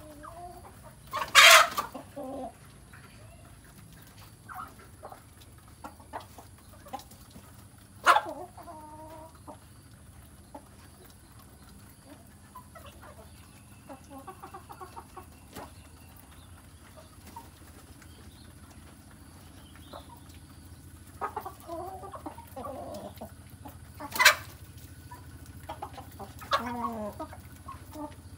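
A flock of chickens clucking as they feed, with three sharp, loud calls: about a second and a half in, around eight seconds in, and near the end.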